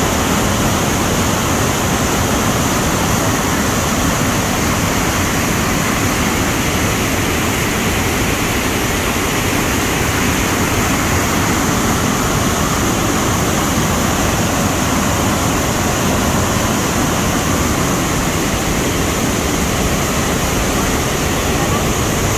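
Waterfall pouring over rock into a plunge pool: a loud, steady rush of falling water.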